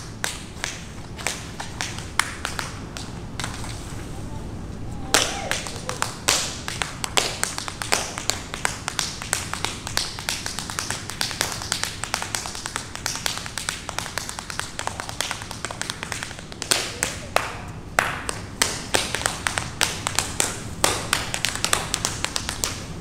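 Tap dancing on a wooden floor: rapid, rhythmic shoe strikes in quick, uneven runs of clicks, with no music.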